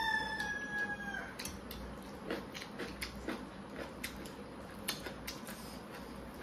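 A rooster crowing, one long held note falling slightly and ending about a second in. After it, scattered soft clicks and smacks of eating: fingers working rice on plates, a spoon and chewing.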